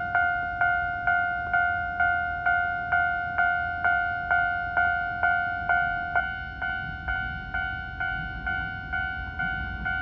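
Japanese railway level-crossing warning bell, an electronic two-tone ding repeating steadily about twice a second, each stroke fading before the next. The low rumble of an approaching train grows near the end.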